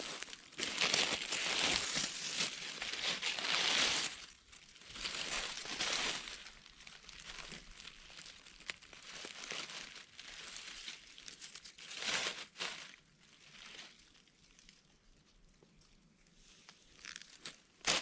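Dry fallen leaves crackling and rustling close up as a hand works through the leaf litter to pick orange-cap boletes. It is loudest over the first four seconds, with shorter spells of rustling later. Near the end a footstep lands on the dry leaves.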